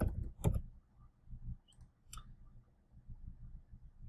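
A few sharp clicks of a computer mouse and keyboard, two close together about half a second apart at the start and a fainter one about two seconds in, over faint low background hum.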